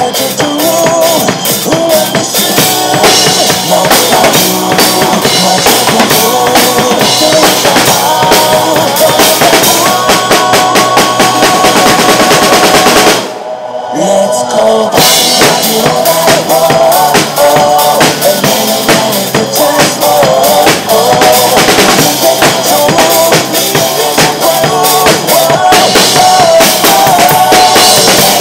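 Drum kit played hard along to a pop-rock backing track with its own drums muted: kick, snare and cymbals over the song's guitars and melody. About halfway through, everything cuts out for under a second, then the drums and band come back in together.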